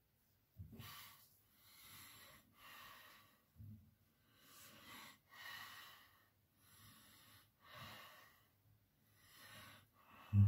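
Straight razor with a damascus steel blade scraping through lathered stubble in a run of short strokes, about one a second with brief pauses between them, plus a soft low thump about a second in and again near four seconds.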